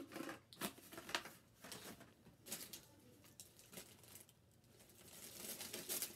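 Faint handling noise of plastic supplies: scattered light clicks and taps as a plastic practice tray and its packaging are set down, then a soft rustle near the end as the next item is rummaged for.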